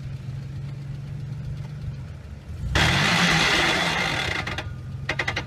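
A 4x4 SUV's engine running at a low steady note, then revved hard for about two seconds with a loud rush of noise as the vehicle tries to climb a steep dirt ledge, before settling back.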